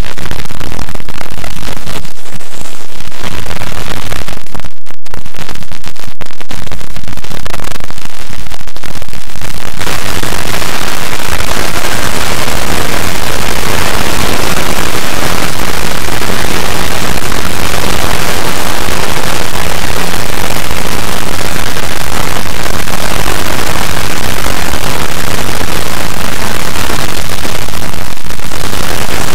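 A clipped, distorted wall of static-like noise made by many video soundtracks layered on top of one another. It is patchy for the first ten seconds, with a brief gap about five seconds in, then becomes a solid, unbroken roar of noise.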